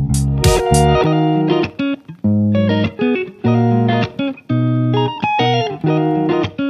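Background music led by guitar, in short plucked phrases with brief gaps between them; percussion drops out about a second in.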